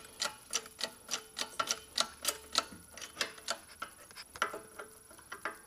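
A 1/4-inch keyway broach being forced through a pulley bore by a hydraulic shop press, making a string of sharp metallic ticks, about three a second, several with a brief ring, as the broach teeth cut. The ticks thin out near the end.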